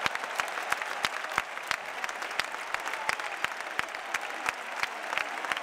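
Large crowd applauding, with one person's claps close by standing out as sharp, irregular claps over the steady clapping of the stands.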